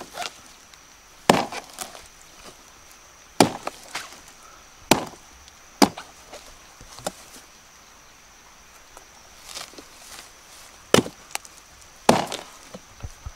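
Hatchet chopping into a rotten palm trunk: about seven separate strikes at uneven intervals, with a pause of a few seconds after the middle.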